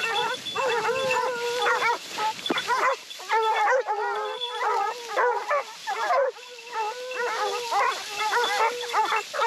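A pack of Porcelaine hounds baying together, many voices overlapping in a continuous chorus: the hounds giving tongue on a wild boar's scent.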